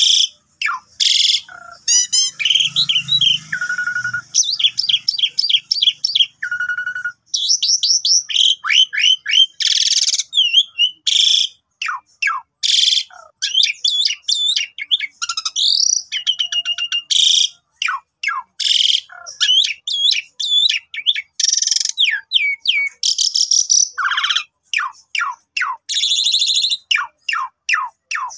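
Asian pied starling (jalak suren) in full, varied song: loud whistles, quick rising and falling notes, rapid trills and harsh calls in short phrases with brief gaps.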